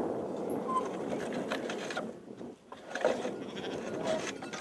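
A flock of sheep running out of a corral, with hooves scuffling and pattering on dirt and a few short bleats.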